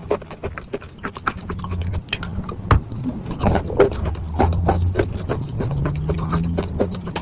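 Wet chalk being chewed close to the microphone: irregular crunchy, moist clicks and crackles. A low steady hum joins about a second and a half in.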